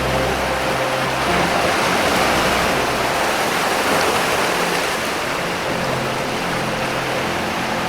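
Ocean surf washing steadily over rocks, a continuous rushing wash with no clear breaks. Soft, low sustained music tones sit underneath, fading out about a second in and coming back near the end.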